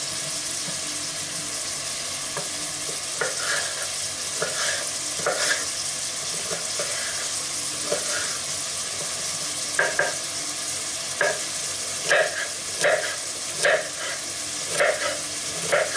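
Chopped onions sizzling steadily in oil in a pot, with a kitchen knife cutting a red bell pepper on a wooden cutting board. The knife strokes start a few seconds in, come closer together in the second half, and are the loudest sounds.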